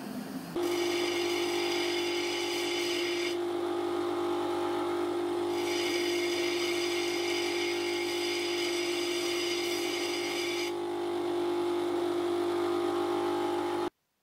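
Bench grinder running with a steady hum while a small hardened steel cutter tooth is sharpened against its wheel. The high grinding rasp of steel on the wheel comes in two spells, about a second to three and a half seconds in and again from about five and a half to eleven seconds. The sound stops abruptly near the end.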